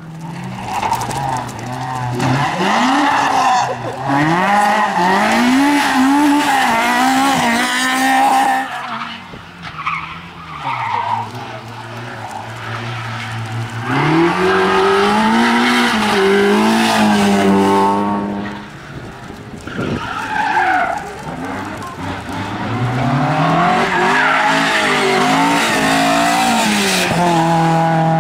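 Rally cars passing one after another on a special stage, one of them an Opel Corsa. Each engine revs hard, climbing and dropping in pitch through gear changes, in three loud passes with quieter spells between.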